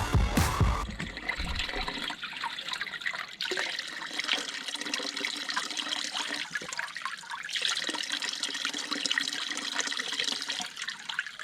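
Stream water running and trickling over rock, a steady flow. Background music cuts off about a second in.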